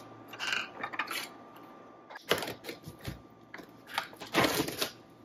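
A kitchen knife and a plastic-wrapped tray of raw chicken handled on a plastic cutting board: scattered clicks and rustles, loudest about four and a half seconds in.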